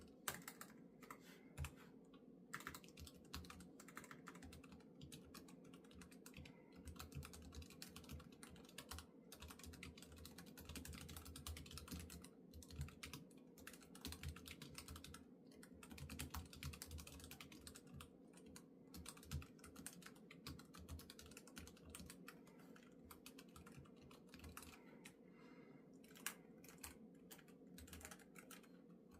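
Typing on an ASUS ROG Falchion RX keyboard with ROG RX Red linear switches: a quick, continuous run of soft key clicks, broken only by a few short pauses.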